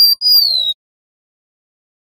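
Golden-bellied gerygone singing: a short high whistle, then a longer thin whistle sliding down in pitch, ending under a second in.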